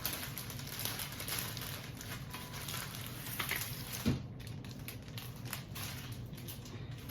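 Close crackling and rustling of hair being handled and worked through the hands, full of small clicks, over a steady low hum, with one sharp thump about four seconds in.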